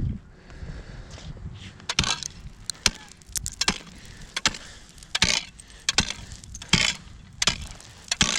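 Steel ice spud bar chiselling into thick, solid lake ice: a steady series of sharp strikes, one about every three-quarters of a second. The bar isn't breaking through, a sign of good thick ice.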